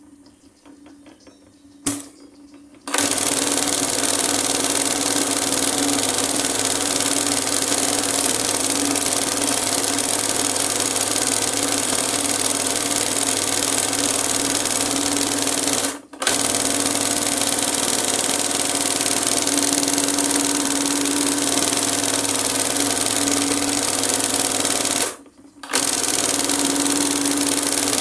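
A hand-guided embroidery machine stitching cord onto fabric. It is quiet at first, then starts with a click about three seconds in and runs steadily. It pauses for an instant in the middle and for about half a second near the end.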